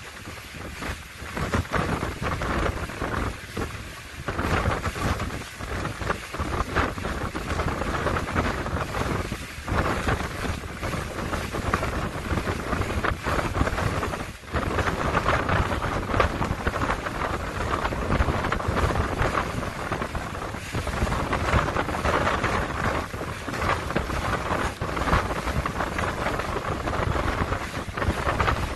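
Wind rushing over the microphone of a boat under way, mixed with the noise of the motor and water running past the hull. It flutters unevenly and drops off briefly about halfway through.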